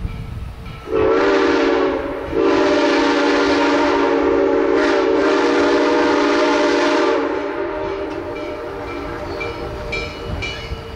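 Steam locomotive whistle blowing a short blast and then a long one of about five seconds, several notes sounding together as a chord, as the train approaches under steam.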